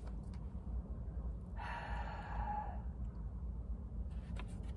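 A person sighs once, a breathy exhale of about a second, over a low steady hum.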